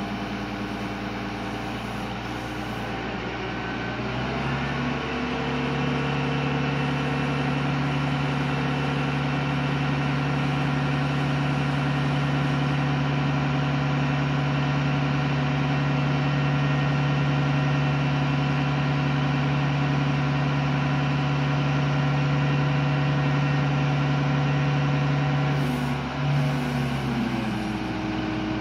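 Engine of a small telescopic-boom crane running: it idles, speeds up about four seconds in and holds a steady higher speed while the hoist winch lowers the hook, then drops back to idle near the end.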